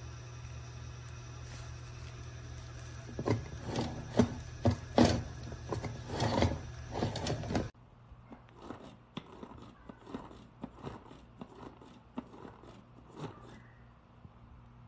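Irregular plastic clicks and knocks from a hand-press food chopper as its plunger is pushed and the blades rattle in the bowl. A steady low hum runs under the first half, and the clicks go on more faintly after it stops.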